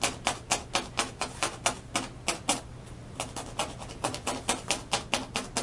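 Rapid, irregular clicking, about five sharp clicks a second, with a quick typing-like rhythm.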